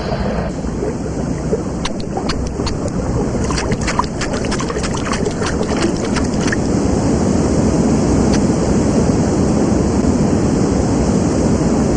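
Rushing river water from a cartoon soundtrack: a steady wash of noise that grows louder about halfway through as the river nears a waterfall. A quick run of short sharp clicks sits in the first half.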